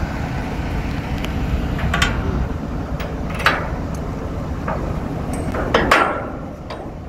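Kato 25-ton truck crane running with a steady low engine rumble, while its steel jib fittings clank sharply several times as they are handled, the loudest knocks about two, three and a half and six seconds in.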